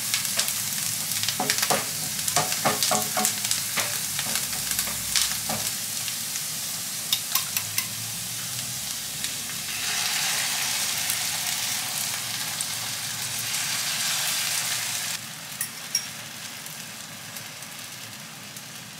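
Shredded cabbage sizzling in oil in a frying pan, with a wooden spatula clicking and scraping against the pan as it is stirred. About ten seconds in, beaten egg poured over the cabbage sets off a louder sizzle that drops away suddenly a few seconds later.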